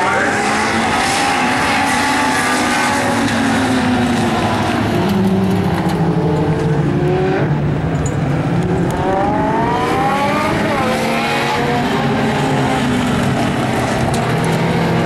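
A pack of Legends race cars running at racing speed, their small four-cylinder Yamaha motorcycle engines revving high. Several engines overlap, their pitch rising and falling as the cars lift for the turns and accelerate out, with a clear rising sweep about nine to eleven seconds in.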